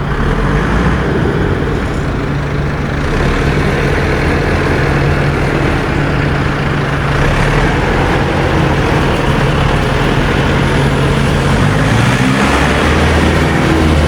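Self-propelled potato harvester's engine running steadily under load, with a low, even drone. Near the end a shifting, gliding tone joins in.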